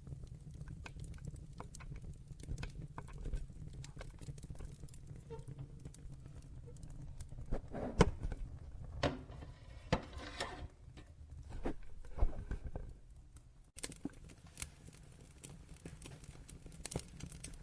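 Fireplace wood fire crackling: irregular sharp pops and snaps over a steady low rumble of the flames, with a run of louder pops in the middle.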